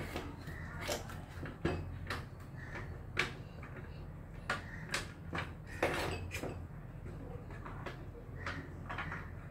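Stainless steel pressure cooker lid being fitted and twisted shut by hand: about ten irregular metal clicks and scrapes over a steady low hum.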